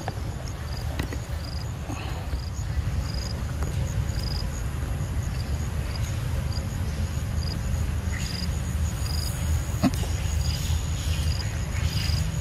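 Insects chirping in short, evenly repeated pulses, about one or two a second, over a steady low rumble. A single sharp click about ten seconds in.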